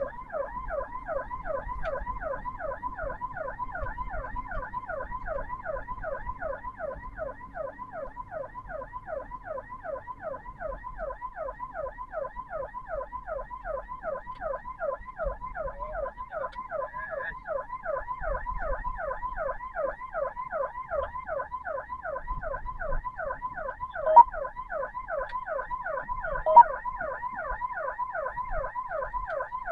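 Ambulance siren in a fast yelp, its pitch sweeping rapidly and evenly, a few sweeps every second, without a break, over a low vehicle rumble. Two short sharp knocks come a couple of seconds apart late on.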